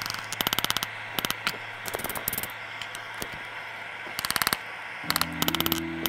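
Blacksmith's hand hammer striking hot steel on an anvil, in quick flurries of light rapid blows with single strikes between. Background music with steady tones comes in near the end.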